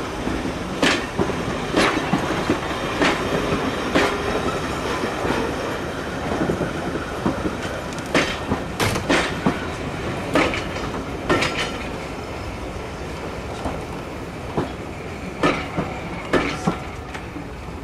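Railway passenger coaches rolling slowly past, their wheels clicking over the rail joints every second or so over a steady rumble.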